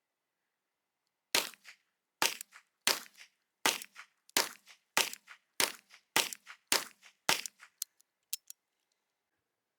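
Ten shots from a Smith & Wesson Safety Hammerless 'Lemon Squeezer' revolver in .32 S&W short, fired at a steady pace a little over half a second apart, each with a short echo. Three fainter sharp clicks follow near the end.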